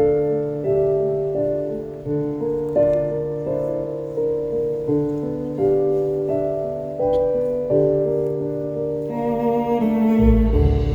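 Piano playing a slow run of single notes, each struck and dying away, over a held low note. About nine seconds in, a deep bass and fuller accompaniment come in.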